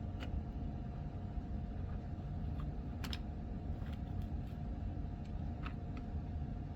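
A few light, scattered clicks and taps over a steady low background hum, like small plastic parts being handled.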